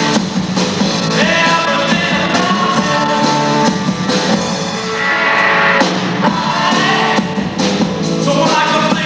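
Rock band playing live on stage: electric guitars, bass and drum kit, with a voice singing over them.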